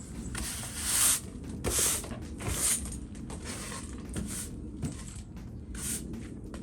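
Stiff broom sweeping in a series of short, brushing strokes.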